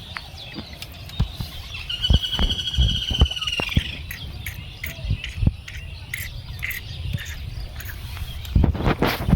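A bird's squawking call, one pitched, slightly falling cry lasting about two seconds, beginning about two seconds in, followed by shorter chirps. Low knocks and bumps run throughout and are heaviest near the end.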